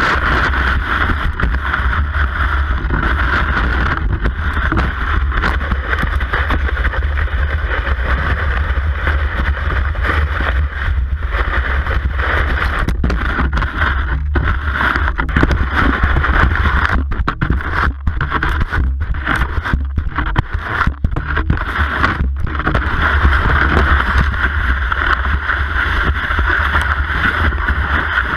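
Cross-country skis gliding in classic tracks, heard through a camera mounted on the ski: a steady hiss of ski on snow over a low rumble.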